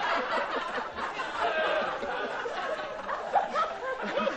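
A person laughing and snickering.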